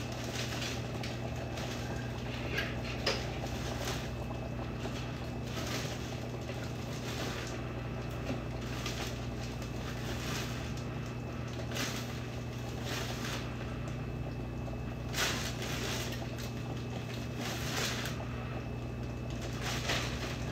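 Steady low hum with scattered soft rustles and clicks of kitchen items being handled, such as a bread bag being opened and bread taken out.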